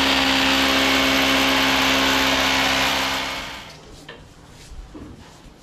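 Electric hammer drill running steadily as it bores into the wall, then winding down and stopping a little over three seconds in.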